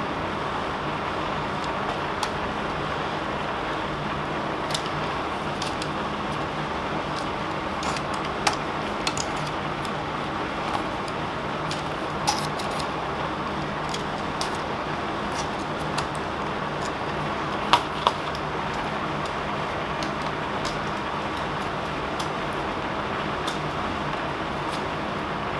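Steady hum and hiss, broken by scattered sharp clicks and taps, with a close pair of louder clicks about two-thirds through, as hands and a box cutter work the retaining tabs on the back of a picture frame to open it.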